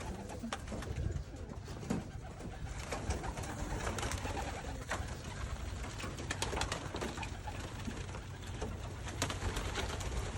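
A flock of white doves cooing together in a small loft, a steady low murmur, with scattered sharp clicks and rustles through it.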